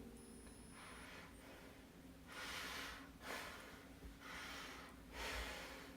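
Faint breathing: about five soft, drawn-out breaths in and out, over a faint steady low hum.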